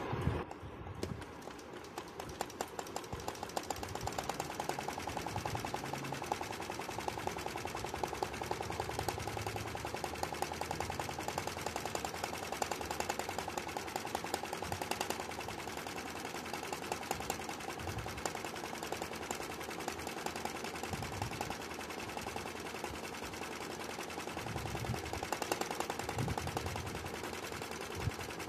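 Janome Secio 8200 sewing machine stitching at speed, a fast, even chatter of needle strokes, as the hoop is moved by hand for free-hand embroidery, outlining a flower in black thread.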